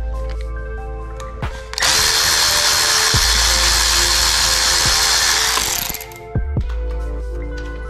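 Cordless electric ratchet running for about four seconds with a steady whine, backing a screw out of an e-bike frame. It starts about two seconds in and stops near the end.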